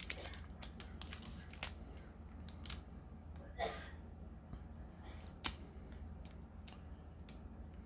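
Faint scattered clicks and crinkles of fingers working open a foil Pokémon trading-card booster pack, briefly a little louder about halfway through.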